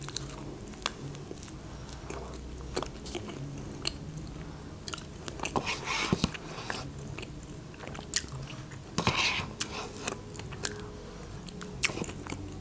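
A woman biting and chewing a shawarma wrapped in lavash, picked up by a close lapel microphone, with scattered small wet mouth clicks and a few louder chews.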